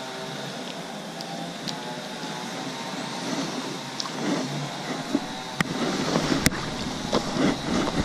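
A steady background rumble with a faint hum. From about halfway, the handheld camera is moved and handled, giving rustles and a few sharp clicks, the loudest a little after the middle.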